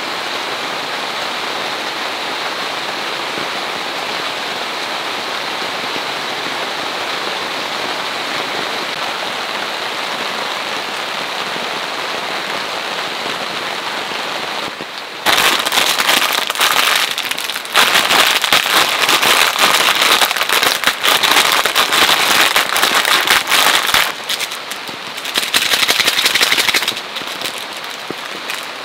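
Steady rain, then about halfway through a much louder, dense patter of raindrops on a surface. The patter eases briefly twice and drops back to the steady rain near the end.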